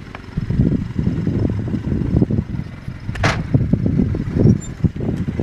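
Arctic Cat Wildcat Sport UTV engine revving in uneven bursts of throttle as the machine crawls up a granite rock ledge. There is a brief sharp high-pitched sound about three seconds in.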